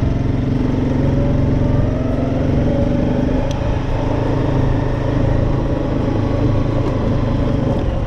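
ATV engine running steadily as the four-wheeler drives along a dirt road, a continuous engine drone that holds an even pitch.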